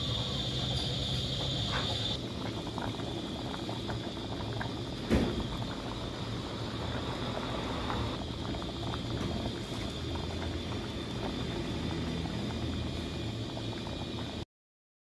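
A steel pot of pork and pickled-cabbage sour soup bubbling at a boil, a steady crackling simmer over a low hum. A single sharp knock about five seconds in.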